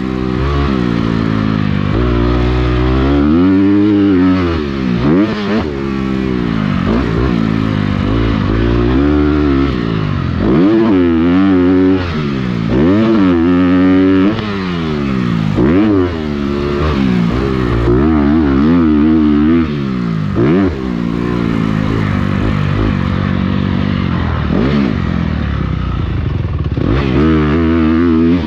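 Motocross dirt bike engine, heard from the bike itself, revving hard and dropping back again and again as the rider works the throttle and gears around the track.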